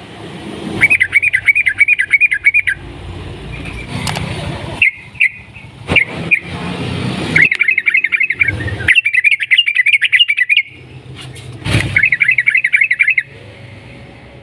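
Yellow-vented bulbul (trucukan) singing long, fast rolling trills of bright repeated notes, in four bursts of about two seconds each, with a few single chirps between them. A low background rumble and a few sharp knocks run underneath.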